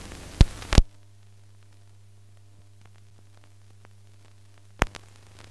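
Old film soundtrack noise. Two sharp pops come within the first second, where the location sound cuts off. Then a steady low hum with faint crackling ticks runs on, with another pop near the end.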